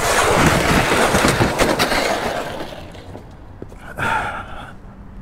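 Motorcycle sliding on its side across the asphalt after a crash: loud metal scraping and clattering that dies away about two and a half seconds in. A brief pitched sound follows about four seconds in.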